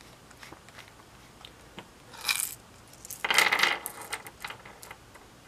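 Small metal clinks and a rattle as a Stanley Workmaster bit driver and its screwdriver bits are handled: a short clatter about two seconds in, a longer one from about three to four seconds in, and scattered light clicks.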